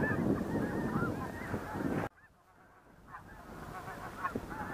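A large flock of snow geese calling, many high honks overlapping. The sound cuts off abruptly about two seconds in, and the calling fades back up over the next couple of seconds.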